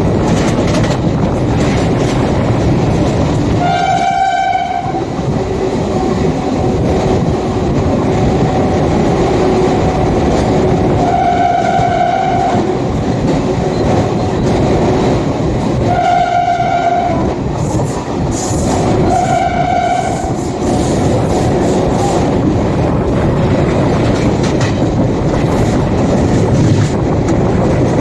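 WAP7 electric locomotive's horn sounding four blasts of about a second each, near the start, around the middle and twice more a few seconds later, over the steady rumble and clickety-clack of the train running on the track.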